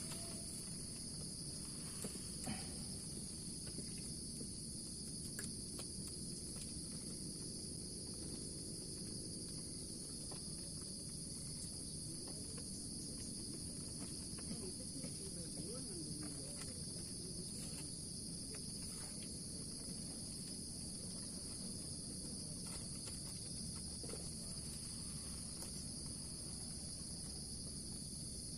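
Steady, high-pitched insect chorus with an unbroken two-band trill, over a low steady rumble and a few faint clicks.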